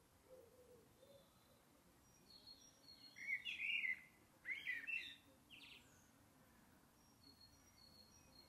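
Wild birds singing: two louder bursts of chirping about three and four and a half seconds in, with faint, high, short repeated notes before and after.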